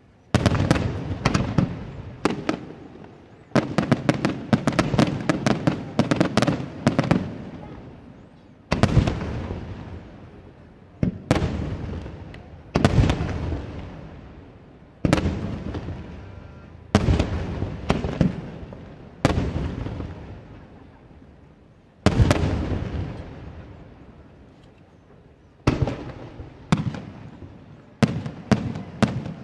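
Aerial firework shells bursting one after another. Each sharp bang is followed by a long rolling echo that dies away over a second or two, and there are quick volleys of several reports near the start and again near the end.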